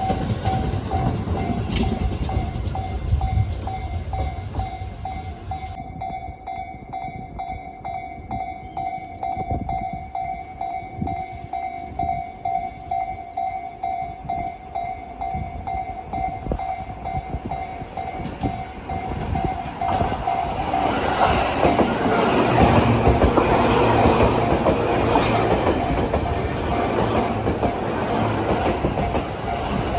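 Japanese level-crossing warning bell ringing in a steady repeating clang while a Tobu Tojo Line electric train passes over the crossing, its wheels clacking over the rail joints. From about twenty seconds in, the passing train grows louder and fuller.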